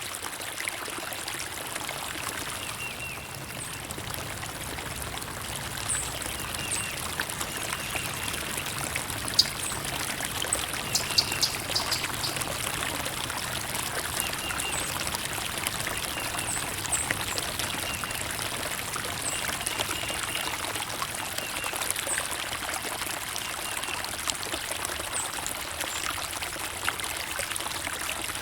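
Water trickling and pouring steadily, with short high bird chirps scattered through.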